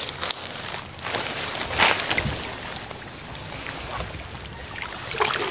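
Water and mud sloshing as a PVC eel trap is pulled out of the wet bank, with a few short handling sounds, mostly about two seconds in.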